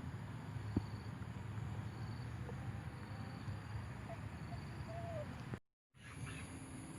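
Quiet outdoor ambience by a pond: a steady faint background noise with a thin high chirp repeating about once a second, and a few faint short calls. The sound cuts out for a moment near the end.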